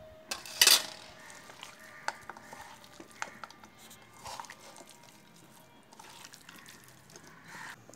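A hand squeezing and tossing flour-coated chicken feet in a wet spice paste in a bowl: soft squelching and rustling with scattered small clicks, and a sharp knock against the bowl about half a second in.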